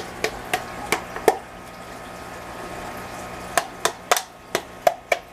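Aquarium water running steadily with a faint hum, broken by irregular sharp clicks and ticks, a few in the first second and a quicker cluster from about three and a half seconds in.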